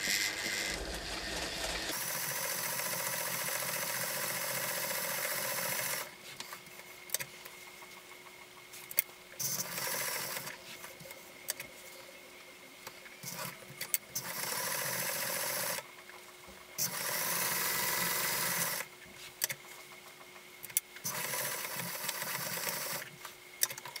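Electric domestic sewing machine stitching a strip of hook-and-loop tape onto fabric. It runs steadily for about six seconds, then in several short runs of one to two seconds, with stops and small clicks in between.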